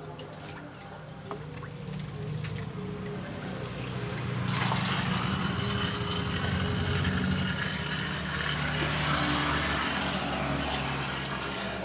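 Pond water pump humming steadily; a little over four seconds in, water starts rushing out and splashing into the pond, and keeps flowing.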